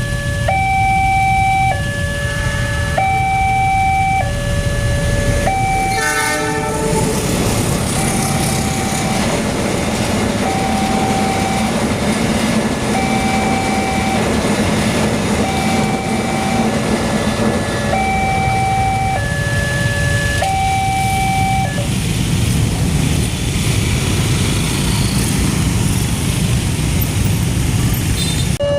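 Alkmaar electronic level-crossing siren sounding its two-tone warning, alternating high and low tones each held a little over a second. About six seconds in a train gives a short horn blast, then passes over the crossing with a steady rumble and wheel noise that partly drowns the siren, which keeps going throughout.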